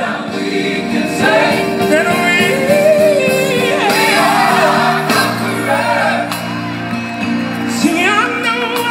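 Gospel song playing: a solo voice sings a wavering, ornamented melody over sustained backing chords.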